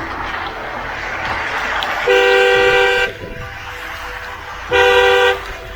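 A vehicle horn honks twice: one long blast of about a second, then a shorter one about two and a half seconds later, over steady background noise.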